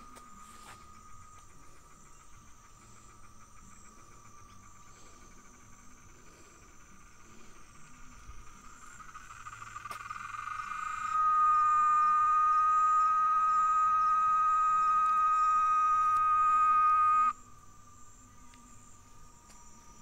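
Cicada singing: its song swells for a few seconds, holds a loud, steady, shrill buzz for about six seconds, then cuts off suddenly. A fainter, steady insect drone runs underneath.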